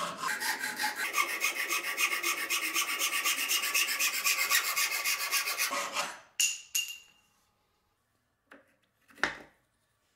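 Hacksaw cutting through a wooden dowel rod in quick, even back-and-forth strokes that stop about six seconds in. A short clatter with a brief ring follows, then a few light knocks.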